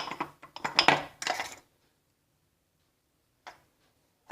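Kitchen utensils clinking and tapping against a cooking pot as spices are added: a quick string of sharp taps in the first second and a half, then a single tap near the end.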